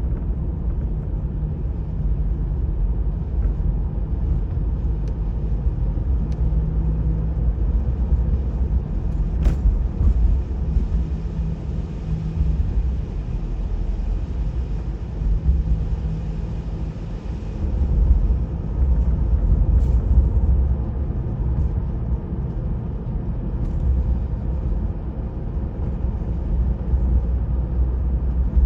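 Steady low rumble, with brief faint clicks.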